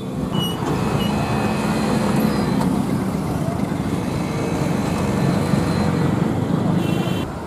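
Floodwater rushing steadily over a submerged road causeway.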